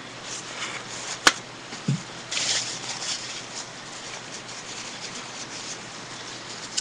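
Toilet paper rustling as it is handled, with a sharp click about a second in and a louder rustle about two and a half seconds in.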